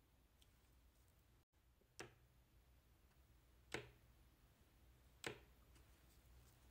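Near silence, broken by three faint, sharp taps of a pen tip against sticky notes on a table, about a second and a half apart.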